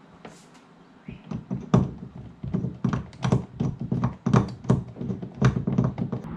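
Hands working hard plastic fittings on a kayak's deck rail: a rapid, irregular run of knocks, thunks and taps starting about a second in.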